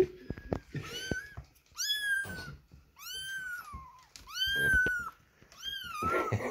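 Young kittens mewing: about five short, high-pitched calls, each rising and then falling in pitch. There is a sharp tap right at the start.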